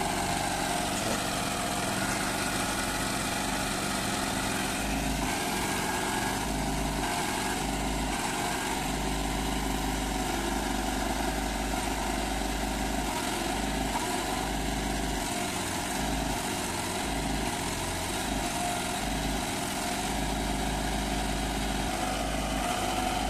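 Sonalika DI 35 tractor's three-cylinder diesel engine running steadily under load, with the tractor and its loaded trolley stuck in deep mud.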